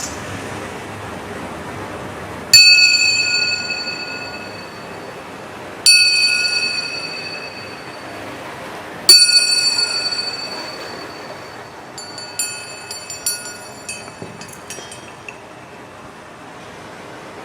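A metal bell struck three times about three seconds apart, each strike ringing out and fading, followed by a quick run of lighter, higher bell-like strikes. A steady rushing noise, resembling a passing train, comes before the first strike.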